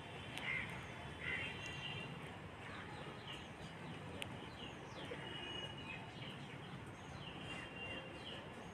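Faint birds chirping in the background, many short quick chirps throughout, over a low steady background hiss.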